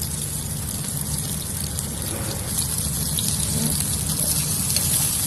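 Prawns searing in hot oil in a paella pan: a steady, even sizzle.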